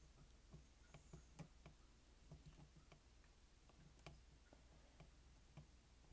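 Near silence with faint, irregular small ticks, a few a second, from a soldering iron tip being stroked across the calculator's LCD ribbon-cable contacts to heat the adhesive so the cable re-bonds to the board. A faint steady low hum lies underneath.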